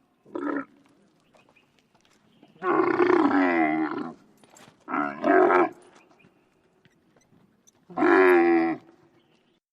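Camel calling, about five deep, rough bellows with pauses between them; the longest lasts about a second and a half.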